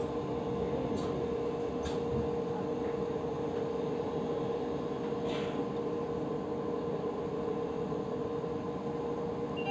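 Interior running noise of a commuter train car: a steady hum with a constant low drone, and a few light clicks.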